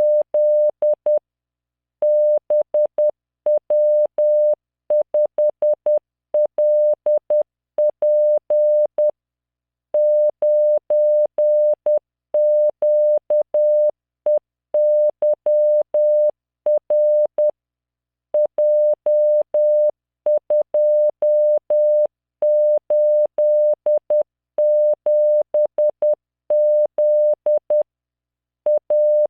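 Computer-generated Morse code at 10 words per minute: a single 600 Hz tone keyed on and off in dots and dashes, spelling random five-character practice groups of letters, numbers and punctuation, with a short pause between groups. Each tone starts and stops with a faint click.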